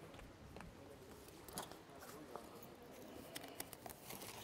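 Faint, scattered light clicks and knocks over low room noise, a few of them close together near the end.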